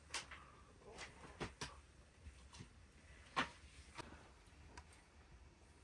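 Faint scattered taps and scratches of a pencil writing on paper, a short stroke every half second or so, the loudest about three and a half seconds in.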